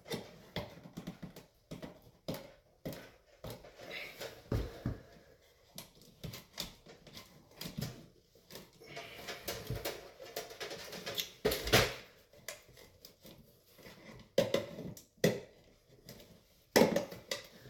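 Irregular clicks, knocks and scrapes of Romex cable being gripped and tugged into a tight hole in an electrical switch box, with the loudest knock about twelve seconds in. The cable won't go in: its insulation is bunching up in the hole.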